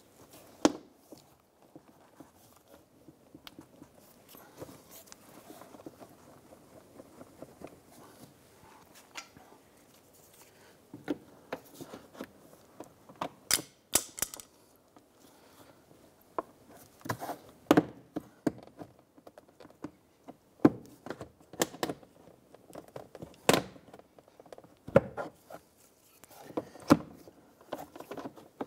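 Plastic retaining clips of a car's interior door panel snapping loose as a plastic trim tool pries the panel away from the door shell. The sharp snaps come at irregular intervals, sparse at first and more frequent and louder in the second half, with light scraping and handling in between.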